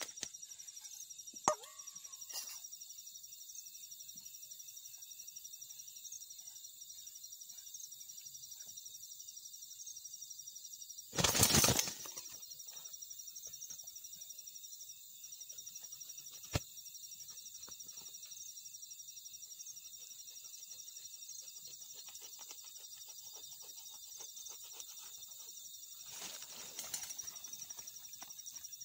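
A chicken flapping its wings in a burst of about a second while it is held down, over a steady high chorus of night insects such as crickets. Two sharp clicks, one near the start and one about halfway through.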